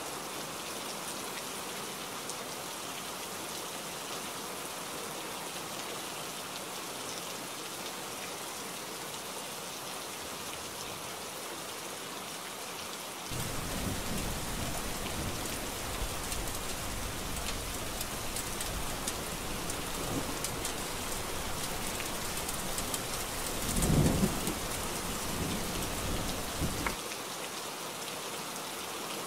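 Heavy rain falling steadily. About halfway through, a low rumble of thunder joins it, swells to a loud peak a few seconds before the end, then stops.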